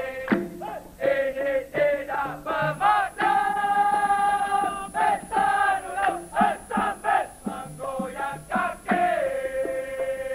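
Dikir barat music: a man's voice sings a winding, ornamented melodic line, with gong and drum accompaniment.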